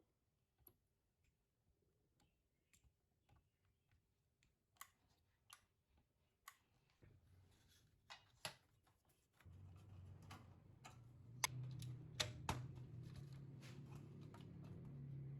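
Scattered light clicks and taps. About nine and a half seconds in, a low steady hum starts and runs on, with a few sharper clicks over it.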